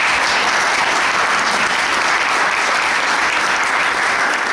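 Audience applauding steadily: many pairs of hands clapping together.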